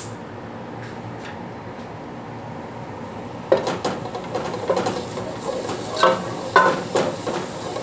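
A wooden spoon stirring minced garlic frying in oil in an aluminium pot. Over a steady hiss, it scrapes and knocks against the metal from about three and a half seconds in, with a couple of sharper ringing knocks near the end.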